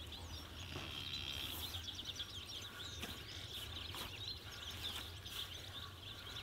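Small birds chirping busily over a low steady hum, with soft squelches of sticky bread dough being kneaded by hand in an enamel bowl.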